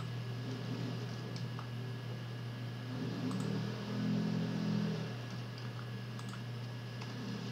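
Sparse computer keyboard keystrokes and clicks over a steady low electrical hum. A low sound swells for about two seconds in the middle.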